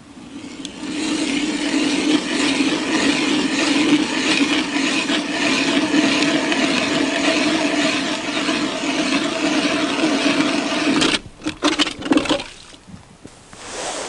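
Motor-driven ice auger boring a hole through the ice, running steadily with a constant hum. It stops about eleven seconds in, then gives a few short spurts.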